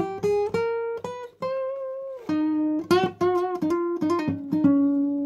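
Guitar playing a melody of quick plucked single notes, with one note held for under a second near the middle and a brighter, sharper strike about three seconds in.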